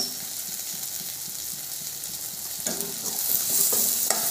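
Sliced onions, chillies and spices sizzling in hot oil in a stainless steel kadai, frying until translucent. From about two and a half seconds in, a metal slotted spatula stirs them, scraping and knocking against the pan.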